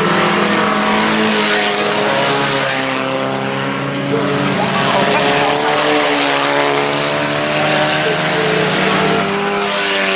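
Several four-cylinder IMCA Sport Compact race cars running at speed together, their engine notes at different pitches rising and falling as they lift and accelerate.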